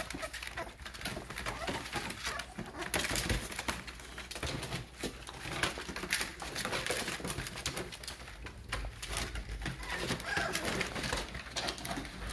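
Young American bully puppies whimpering and squeaking, with scattered small scuffling clicks.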